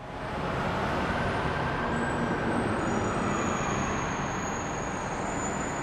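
Steady city ambience of distant traffic noise, fading in at the start. Faint thin high tones join it about two seconds in.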